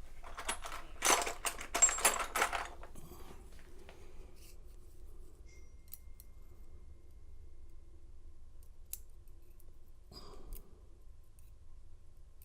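Small metal clicks and scrapes from an American 700 padlock being taken apart to reach its top pins and springs. These are busiest in the first three seconds, then thin out to a few scattered ticks.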